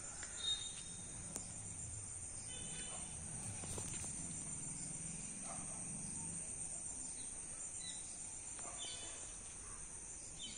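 Crickets trilling steadily at a high pitch, with a few short higher chirps scattered through.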